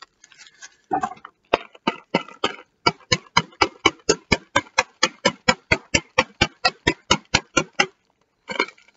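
Scissors snipping again and again through a package's blue wrapping: a quick, even run of sharp snips, about four or five a second, with some rustling of the wrapping before and after.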